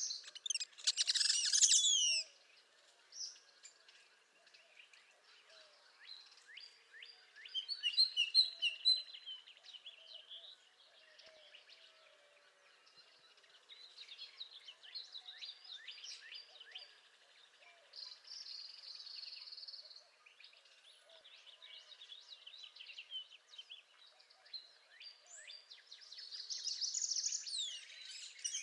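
Northern parula singing: high, buzzy trilled phrases repeated every few seconds, the loudest about a second in.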